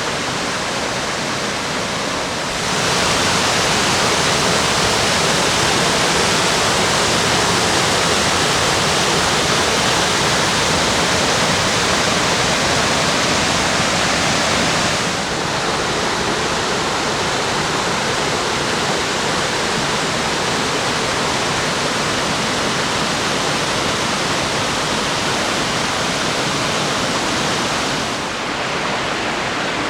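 Double waterfall on a moorland river, water pouring and rushing in a steady, dense hiss. It gets louder a few seconds in, drops back about halfway through, and dips slightly near the end.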